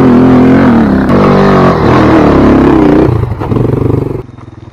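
Trail motorcycle engine revving hard under load as the bike climbs a steep muddy slope, its pitch rising and falling. It drops away suddenly about four seconds in.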